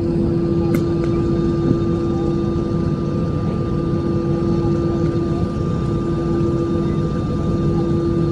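Airplane engine running with a steady drone and a constant hum that neither rises nor falls, with a single sharp click just under a second in.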